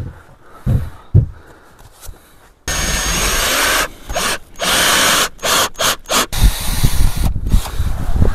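A few knocks, then a power drill driving screws, running in bursts that start and stop several times. Near the end comes a longer stretch of drilling mixed with low clunks.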